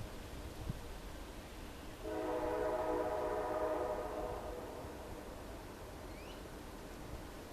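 Train horn sounding a chord of several steady tones: a blast starting abruptly about two seconds in, held for a couple of seconds and then dying away, with the tail of an earlier blast fading at the start.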